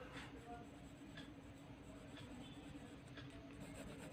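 Faint scratching of a pencil on paper as it shades, in short strokes roughly once a second, over a low steady hum.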